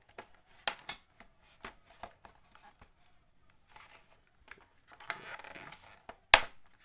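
Drill bits and their plastic tool-kit case being handled: scattered light clicks and taps, a scraping rustle about five seconds in, and a sharp click just after six seconds.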